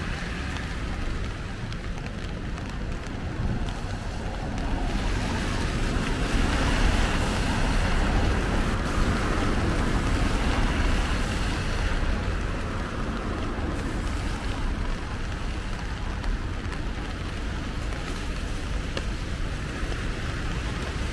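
Rainy city-street ambience: steady rain noise with a low rumble, and a vehicle passing on the wet road, louder from about five seconds in and fading away by about twelve.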